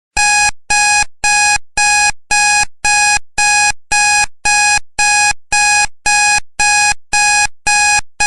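Countdown timer's electronic alarm beeping as the time runs out: a steady string of short, identical beeps, about two a second, each fading off quickly.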